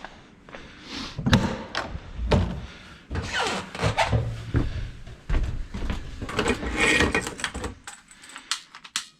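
Irregular clunks, clicks and scraping of hands handling a propane hose and quick-connect fittings while lining them up.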